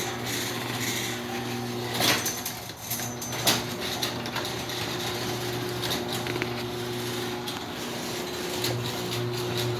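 LiftMaster 3255 garage door opener motor running steadily with a hum as it drives the door down, with two sharp clicks about two and three and a half seconds in.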